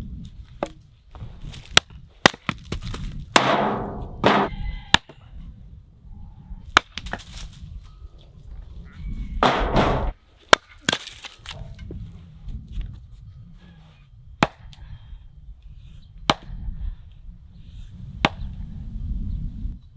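A series of irregular sharp knocks and clacks, like hard objects being handled or struck, with a few longer bursts of rustling clatter, the longest about 3 to 4 seconds in and again near 10 seconds.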